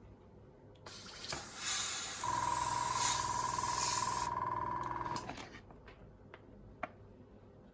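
Airbrush spraying: a strong hiss of air starts about a second in and cuts off a few seconds later. A small airbrush compressor kicks in with a steady hum partway through, as the line pressure drops, and keeps running briefly after the spraying stops. A few light clicks are also heard.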